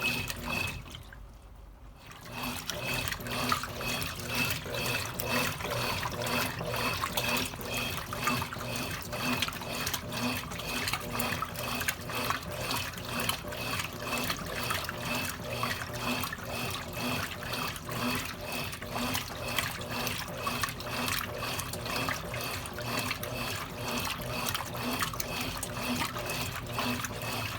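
Water running in a Consul Cargo 8 kg washing machine, steady with an even faint pulse. It drops away briefly about a second in, then resumes.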